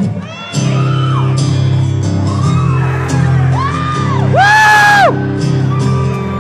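Acoustic guitars begin a slow song about half a second in, their chords ringing steadily, while audience members whoop and shout over them; one loud, held whoop comes about four seconds in.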